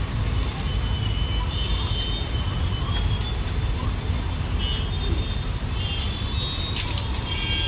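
Steady low rumble of street traffic, with a few short, faint high-pitched squeaks now and then.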